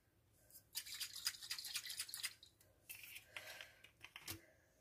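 Faint quick rattling shakes from a seasoning bottle tipped over a glass bowl of sauce: a run of rapid shakes lasting about a second and a half, a shorter second run, then a single click near the end.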